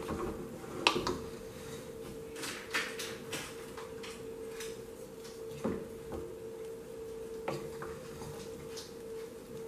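Wooden spoon stirring cooked rice in a metal pot, with several sharp knocks of the spoon against the pot, the loudest about a second in, over a steady hum.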